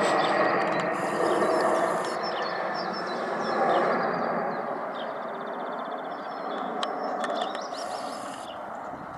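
Boeing 747's four jet engines rumbling overhead, the sound fading steadily as the airliner flies away. Birds chirp faintly at the same time.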